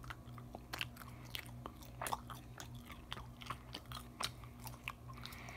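A person chewing a bite of Red Vines red licorice: faint, irregular soft clicks and smacks of chewing.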